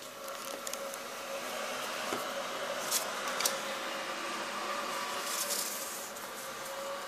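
Camera handling noise: a steady hiss with a faint hum, and two small clicks about three seconds in.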